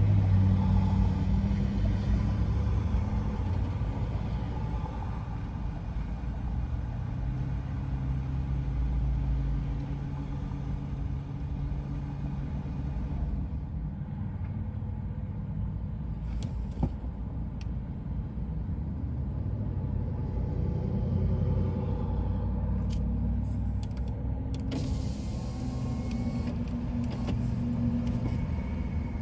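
Steady low rumble of a car's engine and road noise heard from inside the cabin in slow traffic, louder in the first few seconds, with a few faint clicks and a brief hiss later on.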